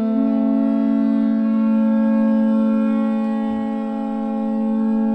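Horagai, the Japanese conch-shell trumpet, blown in one long, steady, held note.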